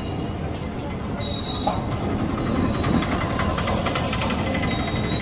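Street traffic noise: a motor vehicle's engine running steadily, with a rapid light clicking over it from about two seconds in.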